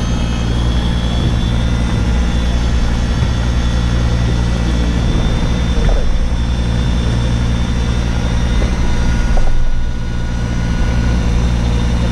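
Electric fishing reel winding in line under load, its motor giving a steady high whine, over the steady low engine hum of the boat.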